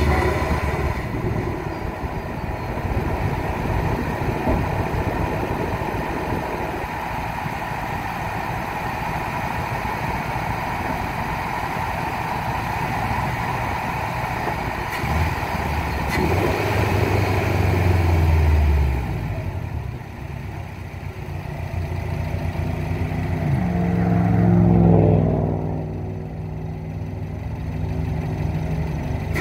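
Subaru WRX's turbocharged 2.5-litre flat-four breathing through a Cobb SF intake, running under varying throttle. It pulls louder twice, the second time with the revs clearly climbing in pitch, and each time the revs drop away afterwards.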